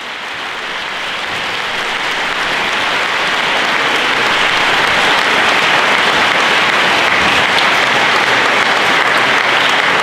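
Audience applauding: dense clapping that swells over the first few seconds and then holds steady.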